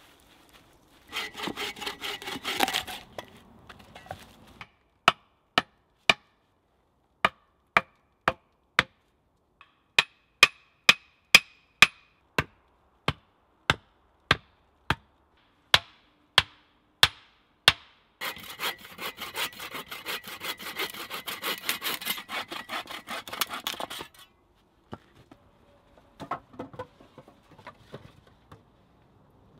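A hand saw cutting wood in two bouts of quick strokes, a short one near the start and a longer one of about six seconds later. Between them comes a run of sharp knocks on wood, about two a second.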